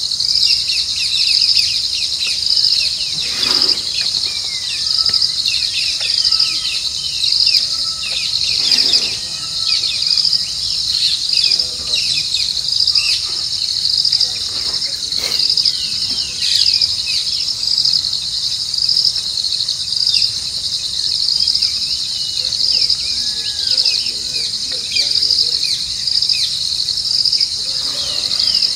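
A chorus of crickets trilling, a steady, high pulsing trill, with many short, quick downward chirps scattered over it.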